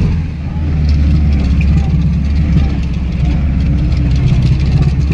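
The ZAZ-965 Zaporozhets's rear-mounted, air-cooled V4 engine running steadily as the small car drives along, heard loud from inside the cabin.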